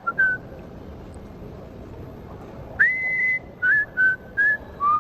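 A person whistling a few notes: a short one at the start, then after a pause a long note that swoops up and holds, followed by several short notes, over a steady background hum.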